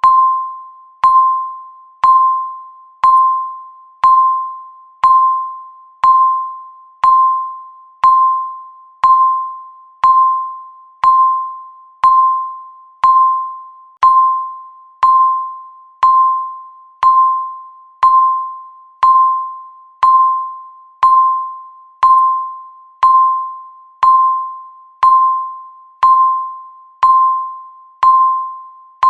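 Electronic timer tick: one short beep near 1 kHz each second, each dying away quickly, marking the seconds of a countdown.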